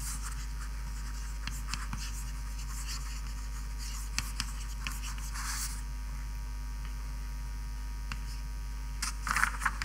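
Steady low mains hum with scattered light taps and scratches of writing on a board, a longer scratch about five and a half seconds in and a cluster near the end.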